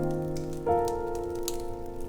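Calm background music: sustained electric-piano chords, moving to a new chord about two-thirds of a second in, with faint light clicks over it.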